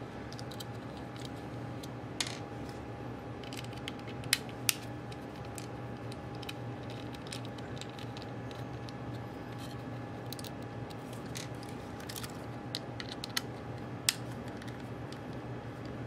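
Small clicks and taps of a laptop hard drive being handled and its small Torx mounting screws being unscrewed, with a few sharper clicks, over a steady low hum.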